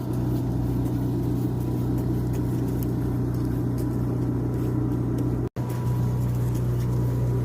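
Steady low engine hum, like a vehicle or generator running at a constant idle, with a brief dropout about five and a half seconds in.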